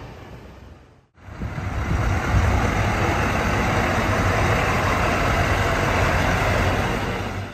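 Scania semi-truck driving slowly past, its diesel engine running steadily with tyre and road noise, starting about a second in.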